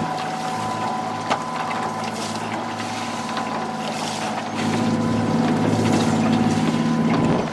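Fishing boat's engine running steadily, with water and wind noise. A steady high whine sits over it, and there is a single sharp knock about a second in.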